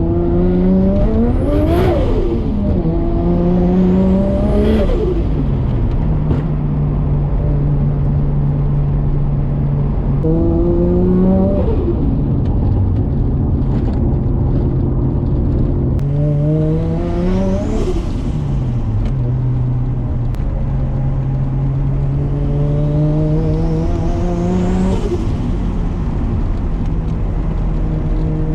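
Built 550 hp Nissan RB25DET turbocharged straight-six in an R33 Skyline. It pulls hard five times, its note climbing with a rising whistle and then dropping off, and cruises at steady revs in between.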